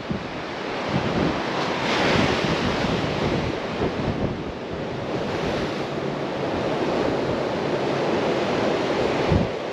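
Sea surf washing against the rocks with wind blowing across the microphone; the surf swells about two seconds in.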